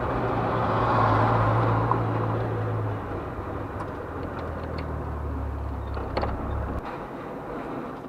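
A Ford Ranchero pickup's engine running, with road noise, as it drives slowly along a street, heard from inside the cab. The low engine hum stops abruptly near the end, followed by a few light clicks.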